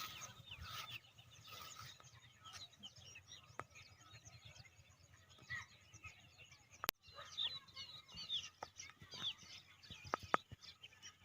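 Birds chirping and calling faintly in many short notes, busiest in the second half, with one sharp click about seven seconds in.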